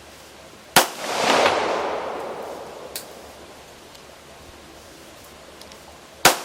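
CZ 75 pistol fired twice, about five and a half seconds apart, each sharp shot followed by an echo that dies away over a second or two.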